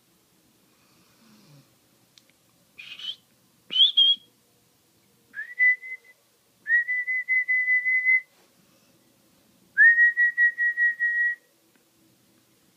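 Sleeping dog giving high whistling sounds: two short, higher-pitched squeaks, then three steady whistles with a fast flutter in them, the last two about a second and a half long each.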